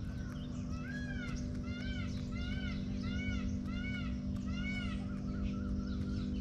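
Indian peafowl (peacock) calling a run of about seven short, arched, repeated notes, one roughly every two-thirds of a second, over a steady low hum.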